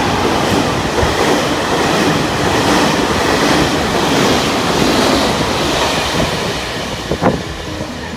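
Red passenger coaches of a locomotive-hauled train rushing past at speed: a loud, steady rush of wheels on rail and air that fades as the train pulls away, with a single sharp clank near the end.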